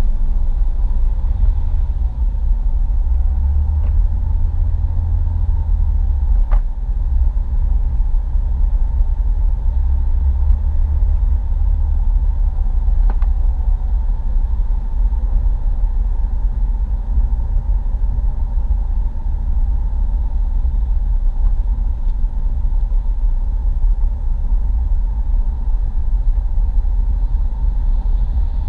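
Steady low road and engine rumble of a car driving at speed, heard from inside the cabin, with a few faint ticks.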